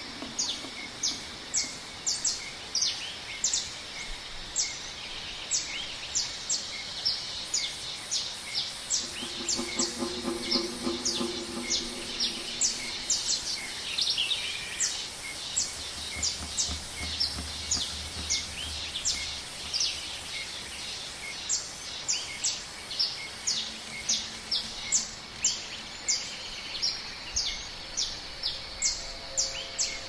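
Jungle night ambience recording: a sharp, high chirping call repeats about twice a second over a steady background hiss. A lower, pulsed call sounds for a few seconds about a third of the way in.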